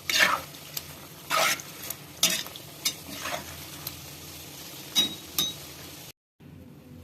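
Metal spoon stirring and scraping against a cooking pot: about seven sharp, irregular strokes over a steady hiss. The sound cuts out briefly about six seconds in and returns quieter.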